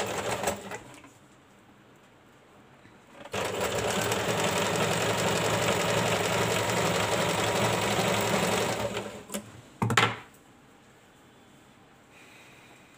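Electric sewing machine running steadily for about five seconds as it stitches layered fabric strips. It then stops, followed by a few clicks and one short burst about a second later.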